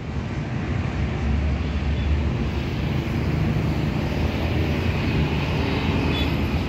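Steady low rumble of a vehicle's engine running.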